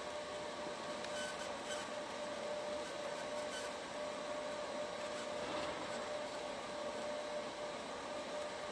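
Fiber laser marking machine running while it engraves text onto a black nameplate: a steady machine hum with fan-like noise and a constant mid-pitched tone, with a few faint ticks in the first few seconds.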